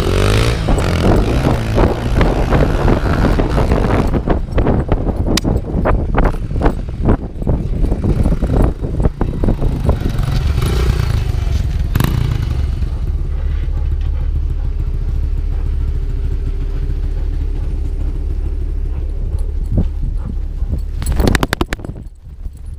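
Honda XR100 dirt bike's single-cylinder four-stroke engine running as the bike rides close by, under heavy low wind rumble. Repeated knocks and clatter, most through the first half, as the running dog's back bumps the gimbal it carries.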